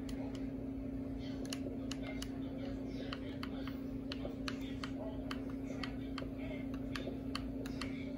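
Light, irregular clicks, about two or three a second, while an Xbox controller is worked at the console menu, over a steady low hum.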